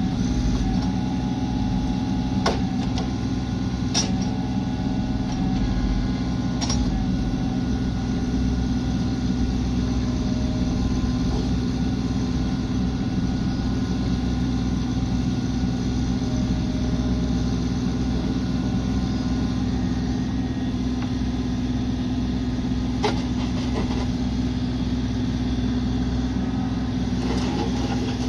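Bobcat E26 mini excavator's diesel engine running steadily at a constant speed, with a few short sharp clunks now and then.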